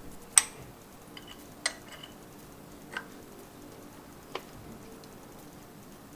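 Sharp metallic clicks and clinks of hand tools against engine parts, four of them spaced a second or more apart, the first the loudest.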